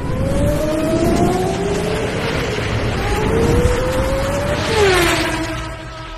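Formula One race car engine revving up through the gears, its pitch climbing several times. About five seconds in the pitch drops sharply as the car passes by, then the engine note holds and fades.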